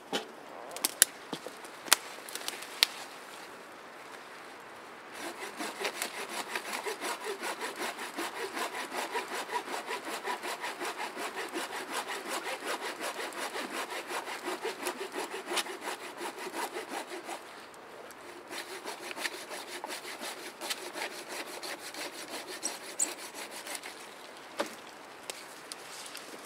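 Hand saw cutting through a conifer branch in steady back-and-forth strokes, starting about five seconds in and going lighter and more broken in the second half. A few sharp knocks come just before the sawing.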